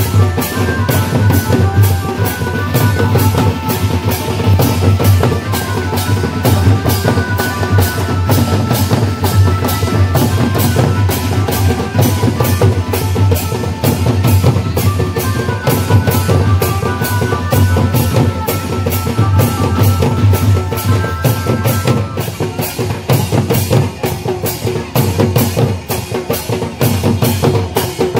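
Folk drum band of neck-slung barrel drums and a kettle drum playing a fast, steady dance rhythm. A melody line of held, stepping notes runs over the drums and drops out about three quarters of the way through.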